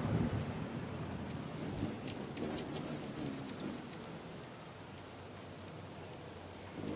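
A small bird's very high, thin squeaking call, held for about three seconds from a second or so in, over scattered soft clicks and rustling.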